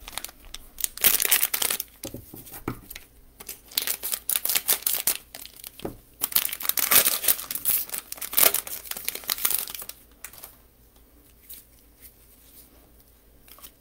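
Plastic wrapper of a 2020-21 Donruss basketball fat pack being torn open and crinkled by hand, in irregular crackling bursts that die away about ten seconds in.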